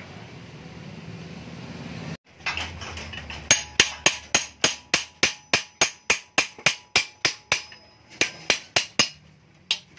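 Rapid hammer strikes on the steel casing of a stock Yamaha MX King 150 motorcycle muffler, about four a second, each with a metallic ring, with a short pause near the end. The muffler is being knocked open to gut it.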